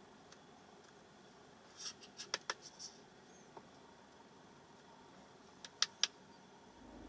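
Sharp clicks of the Audi A3's cabin control buttons as the instrument-cluster menu is scrolled: a quick cluster of clicks, a single one, then two more, in a quiet cabin with the engine off. Right at the end the 2.0 TDI engine starts and a low steady hum comes in.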